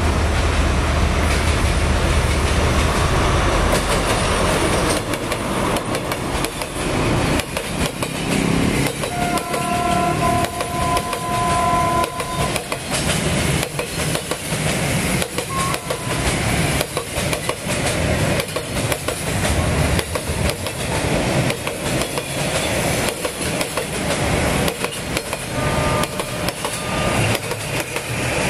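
D13E diesel-electric locomotive hauling a freight train past: a heavy engine rumble for the first few seconds, then the wagons' wheels clacking steadily over the rail joints as the train rolls by. A short high steady tone sounds for about three seconds around ten seconds in.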